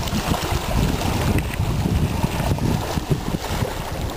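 Wind buffeting the microphone over water sloshing and splashing against a small boat.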